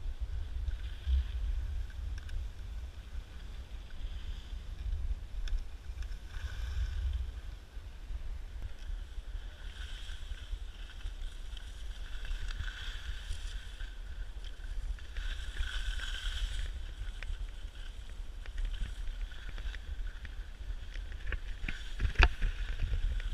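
Wind rumbling on an action camera's microphone while skiing, with an uneven hiss that swells and fades. A single sharp knock comes near the end.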